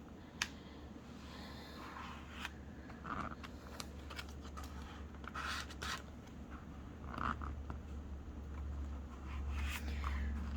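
Paper being handled and pressed down by hand: soft rustles, scrapes and scattered small clicks over a low steady hum.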